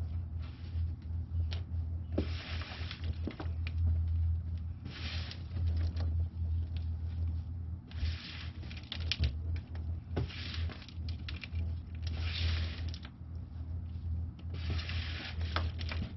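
Gloved hands digging through and turning over moist worm castings in a plastic worm bin: short bursts of rustling and scraping every few seconds, with a few light clicks, over a steady low hum.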